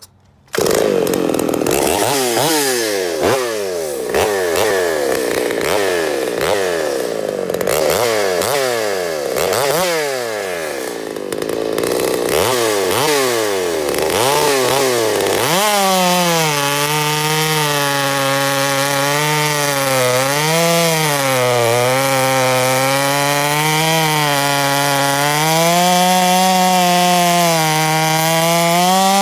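Stihl 084 two-stroke chainsaw, bored to 130cc and ported, pull-started and then revved up and down over and over for about fifteen seconds. It then runs at full throttle cutting through a large log, its pitch sagging and recovering under load, and it climbs again near the end as it comes through the cut.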